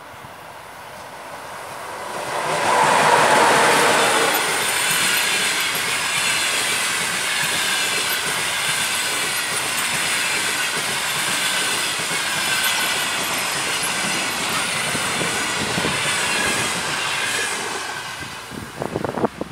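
EP20 electric locomotive hauling a passenger train passes at speed: the locomotive goes by loudest about three seconds in, followed by the long steady rush of the passenger coaches' wheels on the rails with a high ringing tone, fading near the end as the last coach draws away. Wind buffets the microphone at the very end.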